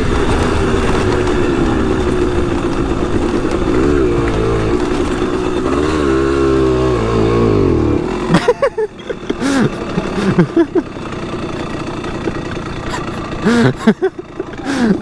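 Simson S51 Enduro's 50 cc two-stroke single-cylinder engine revving hard with a wavering pitch while climbing a slippery grass slope. About eight seconds in it drops to a lower, uneven note with short throttle blips as the bike loses grip and slides back down.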